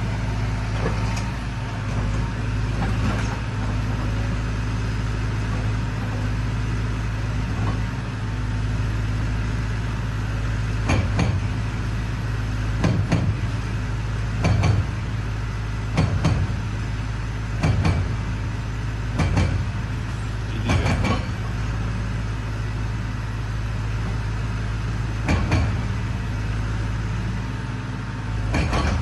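Hydraulic excavator's diesel engine running steadily, with heavy knocks and clanks every second or two, mostly in the middle stretch, as the machine works against the building.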